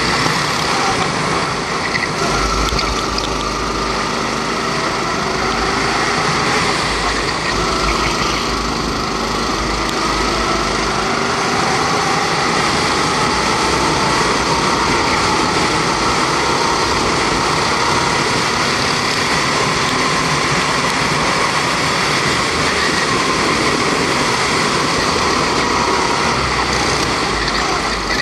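Rental go-kart's Honda 270cc four-stroke engine running hard under racing, its pitch slowly rising and falling as the kart speeds up on the straights and slows for the corners.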